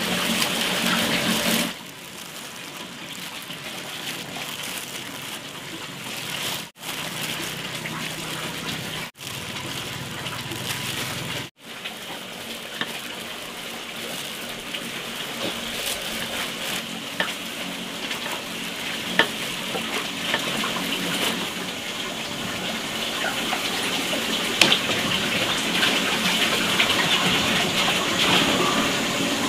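A steady rush like running water, cut off briefly three times near the start, with a couple of sharp clicks later on.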